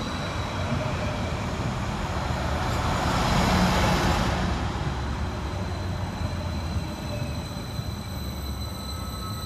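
Transport for Wales Class 231 Stadler FLIRT diesel multiple unit running along the platform, its wheels and running gear giving a continuous rumble with a steady high whine. The noise swells about three to four seconds in as the carriages pass, then eases as the train slows.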